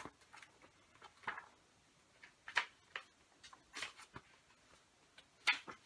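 Pages of a paperback book being leafed through by hand: a few brief, soft paper rustles roughly a second apart.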